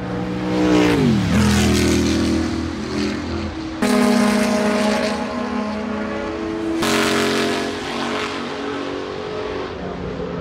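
Racing car engines running hard on a circuit. Their pitch drops steeply about a second in, and the sound changes abruptly about four and seven seconds in.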